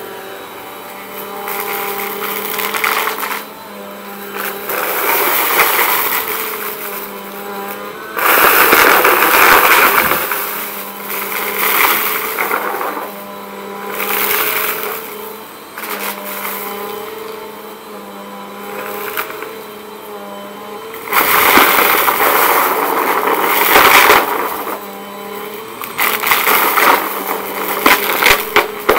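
Bissell Compact upright vacuum cleaner running on carpet with a steady motor hum, sucking up a pile of lint and crunchy debris. Surges of crackling and rattling come every couple of seconds as it is pushed back and forth over the pile, loudest about a third of the way in and again past two-thirds.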